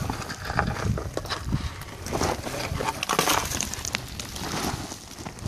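A deer carcass being dragged over rocky, gravelly ground and dry scrub, with boots scuffing and crunching alongside in irregular scrapes. A low wind rumble sits on the microphone underneath.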